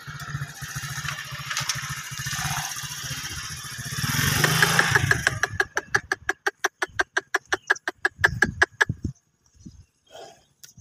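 A small engine running, growing louder about four seconds in, then chugging with an even beat of about seven strokes a second that cuts off around nine seconds in.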